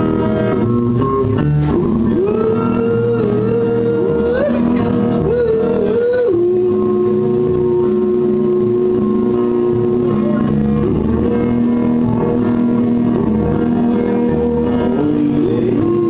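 A man singing karaoke into a microphone over a backing track, his voice leaping in pitch and then holding one long note in the middle.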